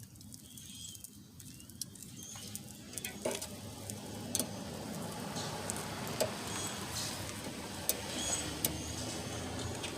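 Scattered light metallic clicks and taps from hand work with snap ring pliers, fitting a snap ring onto a freshly pressed-in ball joint, over a steady low background noise.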